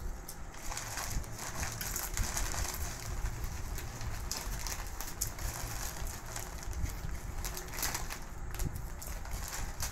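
Foil chip bags crinkling as hands dig into them, with the crunching of potato chips being eaten. The crackle comes in busy spells, loudest about a second in and again near the end.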